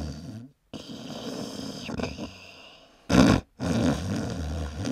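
Growling, roar-like sounds in several short stretches, broken by abrupt cuts near the start, about three seconds in and shortly after.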